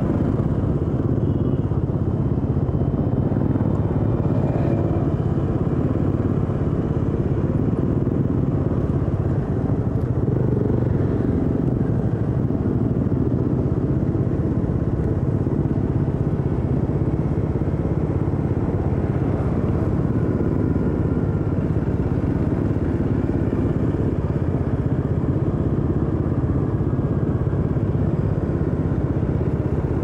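Motorcycle engine running steadily under way, recorded onboard the rider's own bike, with no pauses or big changes in level.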